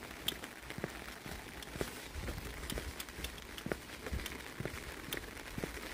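Footsteps on a wet asphalt road, about two steps a second, over a light hiss of rain with scattered drops ticking.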